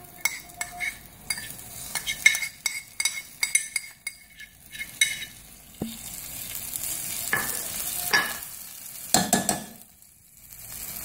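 Spatula scraping and tapping spice masala off into a steel pot, with many quick clicks over the first five seconds, then oil sizzling around the stuffed bitter gourds as the paste goes in. The sizzle briefly drops away near the end.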